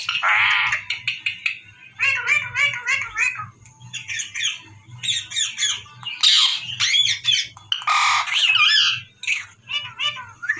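Indian ringneck parrot squawking and chattering in a long run of short, quick calls, with a few louder, harsher squawks about six and eight seconds in.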